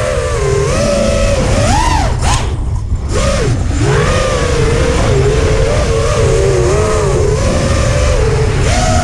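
FPV freestyle quadcopter's brushless motors and propellers whining, the pitch rising and falling with every throttle change, over a low rumble. The whine briefly cuts out a little over two seconds in, then swoops back up.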